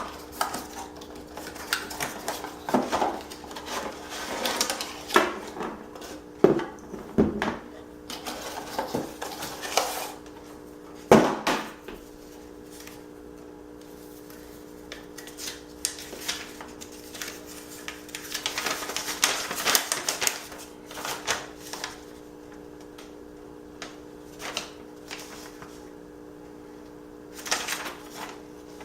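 Packaging being handled during an unboxing: scattered knocks, taps and rustling, with a sharp knock about eleven seconds in and a longer stretch of rustling later on, over a steady low hum.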